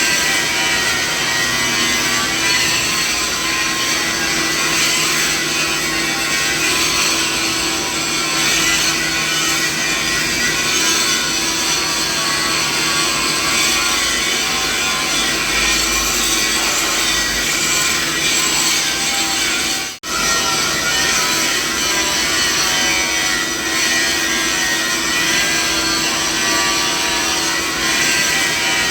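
Steady machinery noise: a dense hiss with several steady hum tones mixed in, running without change. It cuts out for an instant about twenty seconds in.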